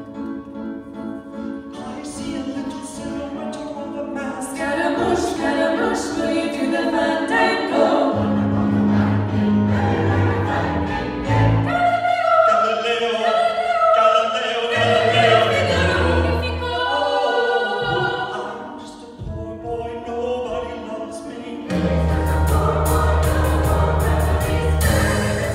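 Mixed church choir singing in harmony with band accompaniment. The bass comes in about a third of the way through, the music thins to a brief lull past the two-thirds mark, and then the full band and choir swell back in near the end.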